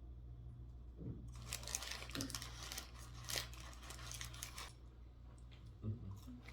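Takeout food packaging crinkling and rustling for about three seconds, starting a little over a second in, with a few lighter ticks afterwards. A steady low hum runs underneath.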